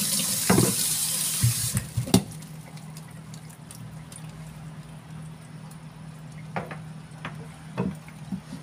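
Kitchen tap running over a chayote half into a stainless-steel sink, shut off about two seconds in. After that, a few short knocks of a knife and vegetable on a wooden cutting board.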